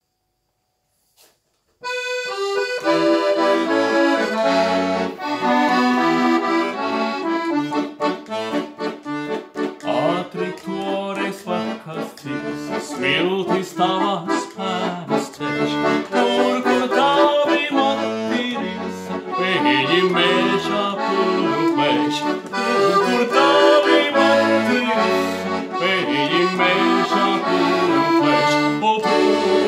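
Chromatic button accordion playing a tune over low bass notes, starting about two seconds in after near silence.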